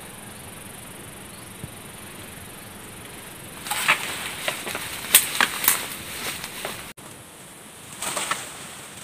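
Dry banana leaves and brush rustling and crackling as they are pushed through or struck with a pole: a quiet stretch, then a run of sharp crackles for about three seconds, and another short burst near the end.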